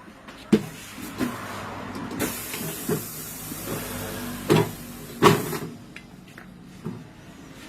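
Pneumatic tire changer and a scooter wheel on it: a handful of metal clunks and knocks as the wheel is handled, with a stretch of hissing air in the middle.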